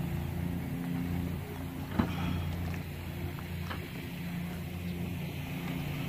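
Suzuki 140 outboard motor idling with a steady low hum, quiet enough to go unnoticed. A single sharp knock about two seconds in.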